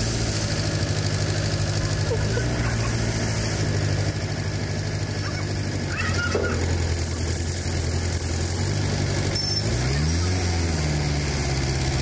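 Diesel engine of a pick-and-carry hydraulic crane running steadily under hoisting, revving up briefly and dropping back about ten seconds in.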